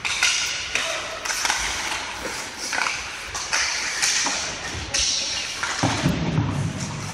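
Ice hockey play: skate blades scraping on the ice in repeated short strokes, with sharp clacks of sticks and puck and thuds against the boards.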